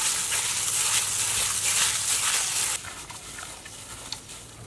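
Sliced raw pork being kneaded by a hand in a plastic glove with sticky palm sugar in a plastic bowl: wet squishing and squelching. It stops about three seconds in, leaving only faint small handling sounds.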